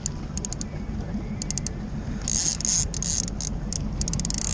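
Fishing reel ratcheting in quick bursts of sharp clicks while a big white sturgeon pulls on the line. Under it, a boat engine runs with a steady low drone.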